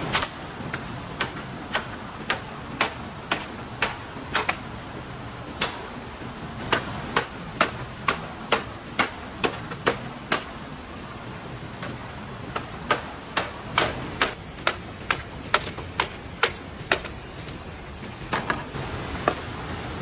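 A blade chopping bamboo: a long run of sharp knocks at about two a second, with a short pause about halfway through and another near the end, over a steady rushing background.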